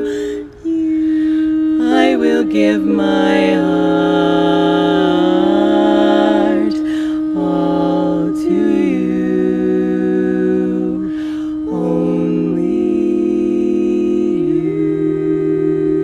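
Women's barbershop quartet singing a cappella: four voices holding long, close-harmony chords that shift to a new chord every few seconds, with a short break about half a second in.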